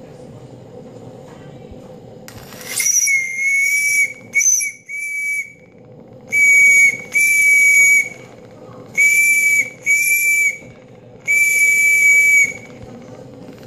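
Steam whistle on a model steam boiler, blown in about eight short blasts at one steady shrill pitch, mostly in pairs, as its hand valve is opened and closed. A brief hiss of steam comes just before the first blast.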